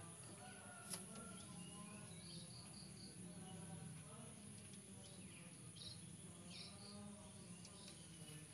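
Faint outdoor ambience: a steady high-pitched insect drone, with short high chirps now and then and one sharp click about a second in.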